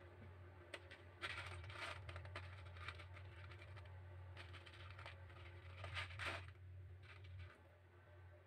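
Faint clicking and rattling of dried beans being scooped by hand out of a plastic tub, in two short spells, over a low steady hum.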